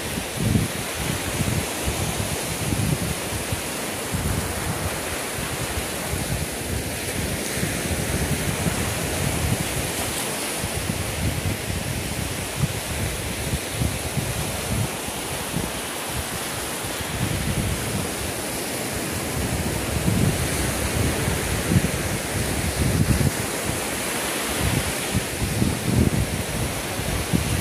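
Small waves breaking and washing up a sandy beach, with wind gusting on the microphone in uneven low rumbles.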